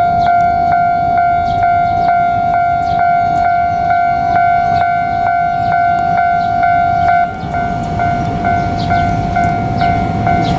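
Japanese level-crossing warning bell ringing, an electronic clang repeating evenly about twice a second, with a low rumble underneath. The ringing dips briefly about seven seconds in.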